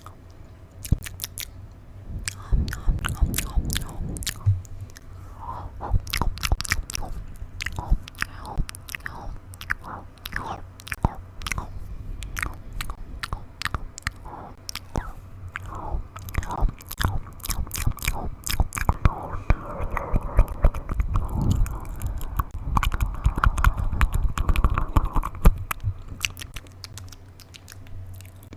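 Close-miked ASMR mouth sounds: a rapid, irregular run of wet clicks and smacks from tongue, lips and saliva, much like chewing.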